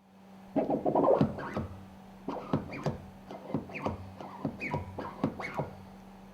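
Hand tools working on the lubricator's metal parts: a quick cluster of scrapes and clicks about half a second in, then a dozen irregular short scraping strokes, over a steady low hum.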